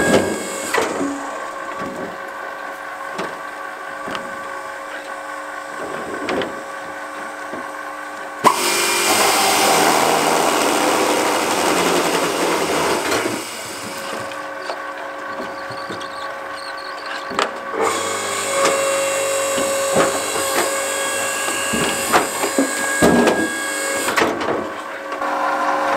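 Homemade firewood processor running, its electric drive humming steadily with scattered knocks of wood on steel. About eight seconds in, the saw bar cuts through a log for about five seconds, a loud sawing noise that stops suddenly.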